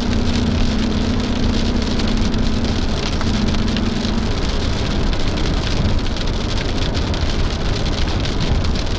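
Heavy rain pelting a moving car, heard from inside the cabin, over a steady rush of road and engine noise. A low steady hum runs under it and stops about four seconds in.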